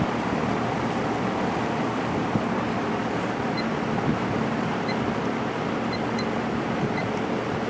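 Lakewood JCPenney 9711 box fan with a 3.1 amp General Electric motor running steadily on low speed: an even rush of air over a faint motor hum.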